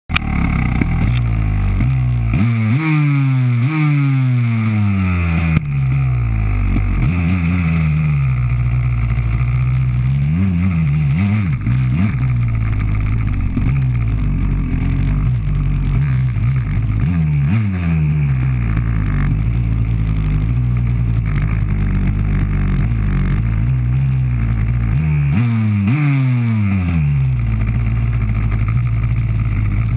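Dirt bike engine ticking over, revved up sharply and dropping back again several times: a run of quick revs in the first few seconds, then single blips every few seconds, heard up close from the handlebars.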